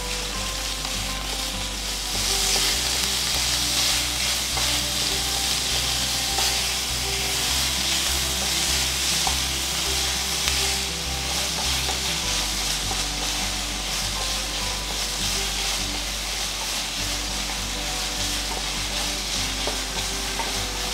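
Ground pork and sliced green onion sizzling in a frying pan while being stirred with a wooden spatula. The sizzle grows louder about two seconds in.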